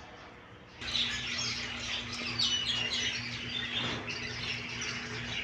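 Many small birds chirping and tweeting together in a dense, overlapping chorus that starts about a second in, over a low steady hum.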